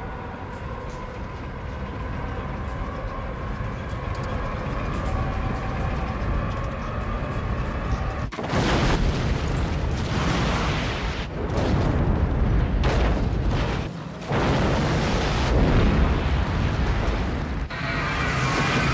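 Sci-fi film sound effects of the starship Enterprise-D in crisis. A low steady rumble with faint held tones runs for about eight seconds, then breaks suddenly into a much louder rushing rumble with booms. This cuts out briefly about fourteen seconds in and comes back.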